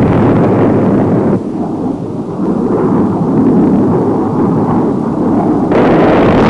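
Bomb explosion rumble: loud for about the first second and a half, then a lower, steady rumbling. Near the end a louder roar starts abruptly.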